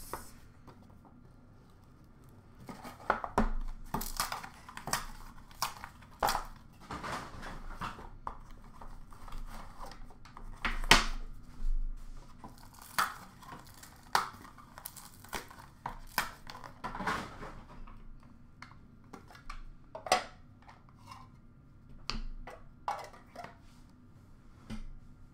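A box of hockey trading cards being unpacked by hand: cardboard and paper packaging handled, wrappers crinkled and torn open, with irregular light taps and knocks as pieces are set down and dropped.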